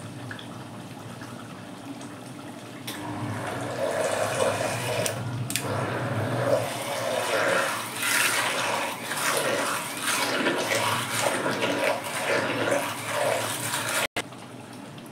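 Hand blender puréeing boiled wheat in a pot: wet churning and sloshing that grows louder about three seconds in and varies unevenly as the blade works through the mash. It cuts out for an instant near the end.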